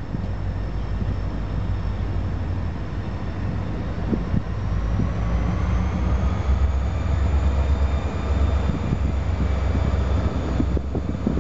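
Union Pacific diesel freight locomotives approaching: a low engine drone that grows steadily louder, with a faint rising whine in the middle.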